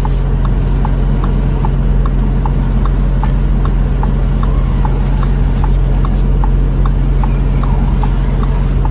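Audi A8's hazard-light indicator ticking at a steady rate of a little over two clicks a second, over a steady low hum in the cabin.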